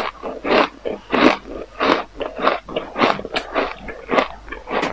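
Close-miked chewing of powdery frozen ice: a steady run of crisp crunches, about two a second.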